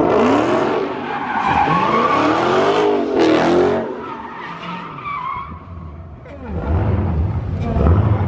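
Car tires squealing under wheelspin in repeated rising and falling sweeps over a revving engine, dying away about four seconds in. A deep, steady engine rumble comes up near the end.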